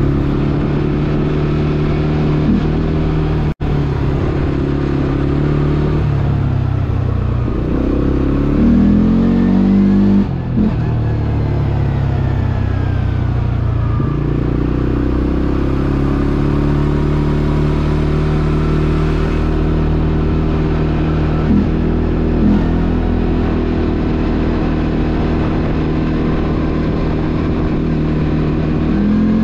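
CFMOTO ATV engine running under way, the revs rising and falling as the throttle opens and closes about a third of the way in, with a couple of short throttle blips later. The sound cuts out for an instant about three and a half seconds in.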